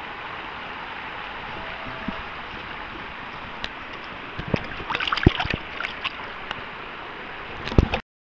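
Shallow stream water rushing steadily. Halfway through come several splashes and sharp knocks in the water, and again near the end, as a trout is handled and thrashes in the shallows. The sound then cuts off suddenly.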